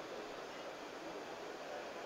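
Faint, steady background noise of a trade-fair exhibition hall: an even hiss with no nearby voice.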